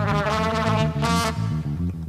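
Live jazz: a trumpet plays a line over a repeating bass groove. The trumpet stops about a second and a half in while the band's bass line carries on.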